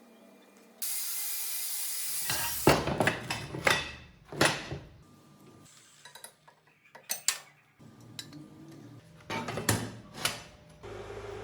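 Workshop handling noises: a short steady hiss, then a run of irregular knocks and clanks of metal parts and tools being set down and worked.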